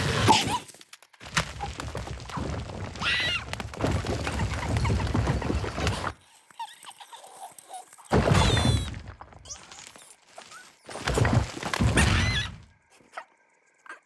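Cartoon slapstick sound effects: a series of thuds and knocks in several loud bursts with short pauses between them, with brief high gliding squeaks about three seconds in and again past the middle.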